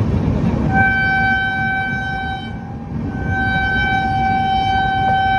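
Train horn sounding two long blasts with a short break between them, over the low rumble of the moving passenger train.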